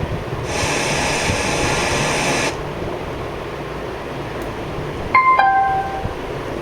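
Steady hiss from a portable trolley speaker, brighter for about two seconds, then a short two-note electronic beep falling in pitch, the kind of prompt tone the speaker gives on switching mode or connecting, a little after five seconds in.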